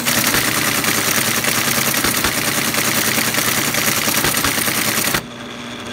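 ASR-33 Teletype printing lines of output, a fast, continuous mechanical clatter of the typing mechanism that stops abruptly about five seconds in. The teletype's motor then runs on with a steady hum.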